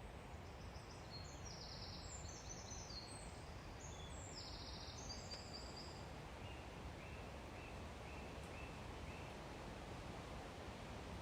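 A songbird singing: a quick jumble of high, varied notes for the first half, then a row of about six lower, evenly repeated notes, over a steady outdoor background hiss.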